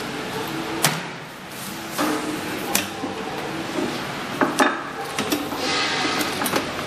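Handling noise as a clear plastic suction hose is worked onto the metal inlet pipe of a rotary vane vacuum pump: scattered knocks and clicks, a few close together a little past the middle, over a steady background noise.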